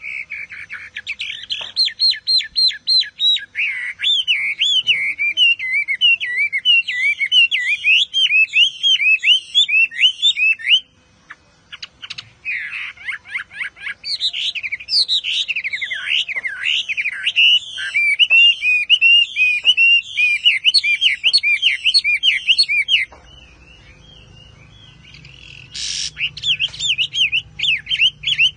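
Caged Chinese hwamei singing: long, loud runs of rapid, varied whistled notes sliding up and down. The song breaks off briefly about a third of the way in, pauses for a few seconds near the end, then starts again.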